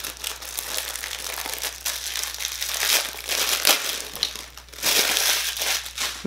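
Clear plastic packaging crinkling and crumpling as it is torn open and pulled off by hand, with louder bursts about three seconds in and again near five seconds.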